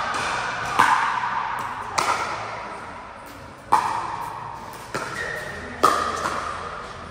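Pickleball rally: paddles hitting the hard plastic ball, five sharp pocks spaced about a second apart, each ringing and echoing in the large hall.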